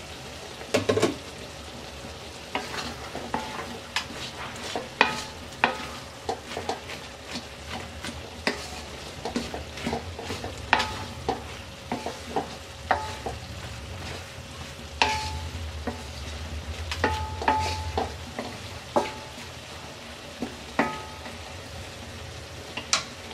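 Wooden spatula stirring dried jujubes in a metal pot, with many irregular knocks and scrapes against the pot, some leaving a short metallic ring, over a steady sizzle from the simmering pot.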